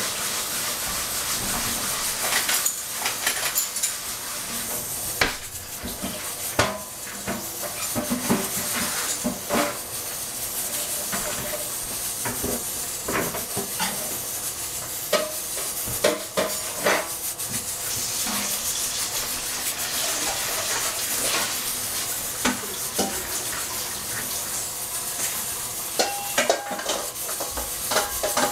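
SEB pressure cooker on the stove at pressure, steam hissing steadily from its valve, with irregular metallic clicks and rattles throughout.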